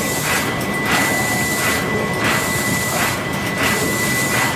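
Paddle steamer's steam engine running, with a rhythmic mechanical beat about twice a second that repeats in a slow cycle of about a second and a half, over a steady high whine.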